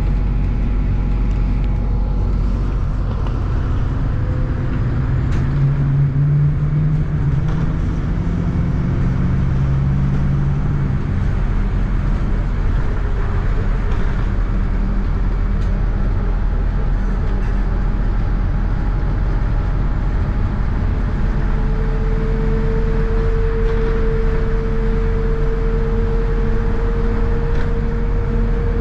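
MAZ-103 city bus heard from inside the cabin while driving: steady engine and road noise. The engine's low hum rises and swells for several seconds about a fifth of the way in, and a steady higher whine comes in about two-thirds of the way through.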